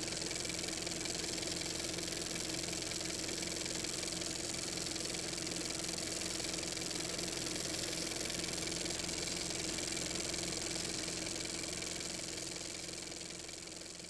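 Steady whirring clatter and hum of a film projector running, with hiss, fading out over the last couple of seconds.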